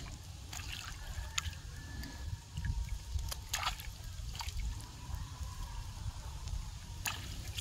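Water trickling and dripping off a wet cast net as it is lifted and picked over in shallow water, with a few small sharp splashes and a low rumble underneath.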